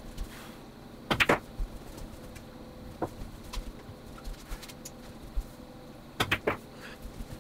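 Billiard balls clicking: a loud cluster of sharp clicks about a second in, then near the end a stop shot, the cue tip hitting the cue ball and the cue ball clacking into the object ball in quick clicks within half a second.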